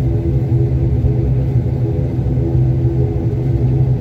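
Airliner cabin noise while taxiing: a steady low rumble of the jet engines and airframe, with a steady deep hum.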